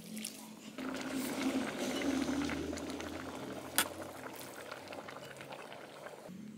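Fish and tomato braising broth bubbling at a boil, starting suddenly about a second in and easing off toward the end, with one sharp click midway.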